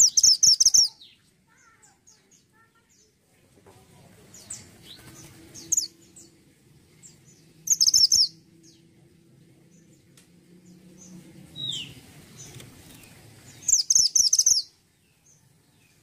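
Caged mantenan gunung songbird calling: three bursts of rapid, high chattering notes, one at the start, one about eight seconds in and one near the end, with faint single chirps in between.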